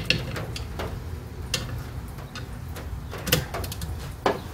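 Ratchet wrench on a long socket extension giving a handful of sharp, irregular clicks and clinks as it works a stuck master cylinder mounting nut, over a low background rumble.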